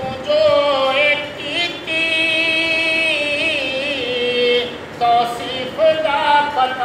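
A man singing a naat unaccompanied into a microphone, holding long notes with wavering ornaments, with a short break in the voice about five seconds in.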